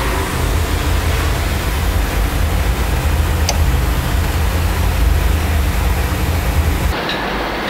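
Gas-fired three-pass Scotch marine boiler firing during a cold start: a steady, loud roar with a heavy low rumble. There is one sharp tick about three and a half seconds in, and the rumble drops away abruptly near the end.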